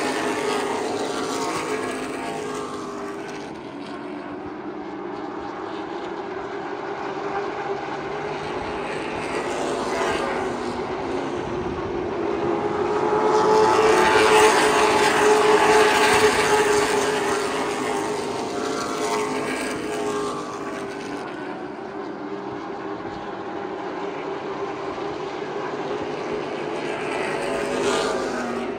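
Race car engines running at speed around a paved oval: a field of stock cars passes, the engine note swelling to its loudest about halfway through as the pack goes by, then fading, with another brief rise near the end.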